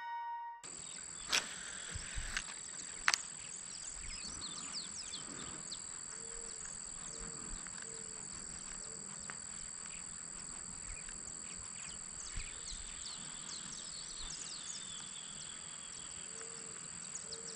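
Faint outdoor morning ambience by a ditch: many short bird chirps over a steady high-pitched insect drone, with a few sharp clicks in the first few seconds.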